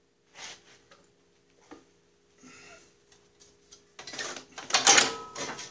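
Faint clicks and handling noises, then about four seconds in a loud stretch of metal clattering and scraping while the Snapper rear-engine rider's drive and chain case are being worked on.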